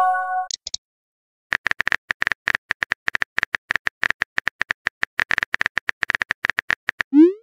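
Phone messaging-app sound effects. A short incoming-message chime fades out at the start. After a brief pause comes a fast run of keyboard tap clicks, several a second, as a message is typed, and it ends with a rising swoosh as the message is sent.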